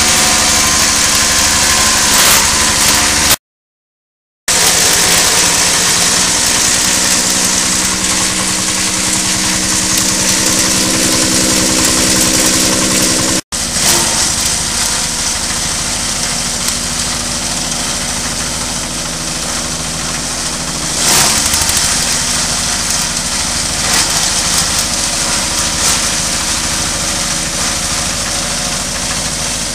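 Small stationary engine running steadily, driving a straw and coconut-frond chopper, with a hiss of machinery over the engine note. The sound cuts out completely for about a second near the start and again for an instant about halfway through.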